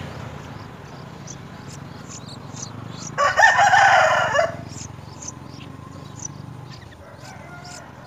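A rooster crows once, about three seconds in, for just over a second; it is the loudest sound. Short high bird chirps repeat throughout.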